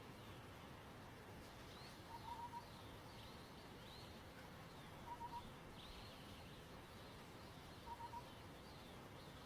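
Faint wild birdsong: a short phrase of three or four low whistled notes, repeated about every three seconds, over thin higher chirps from other birds.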